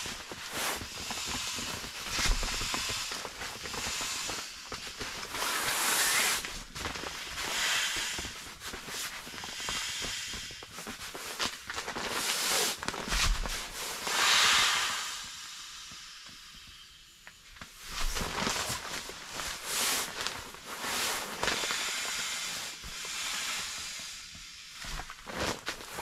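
Air hissing out through the one-way valve of a self-inflating foam sleeping pad as it is rolled up tight and pressed down, coming in surges with each push, the longest about 14 seconds in. The pad's fabric rustles and scrapes throughout.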